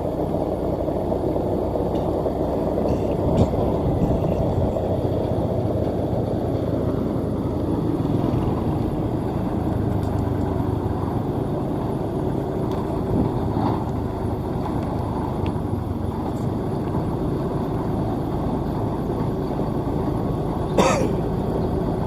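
Combine harvester's engine and running gear running steadily as the machine travels along a road, with one brief sharp sound near the end.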